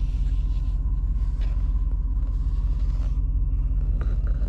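Pickup truck engine idling while stopped in gear, heard from inside the cab as a steady low rumble.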